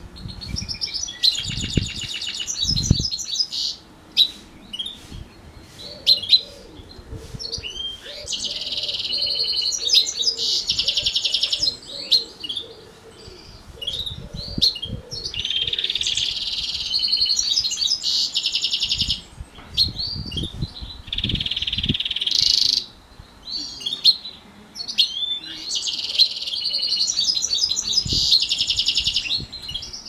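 House finch × canary hybrid singing: about five long phrases of rapid trills and buzzy rolls, each lasting a few seconds, with short chirps in the pauses between.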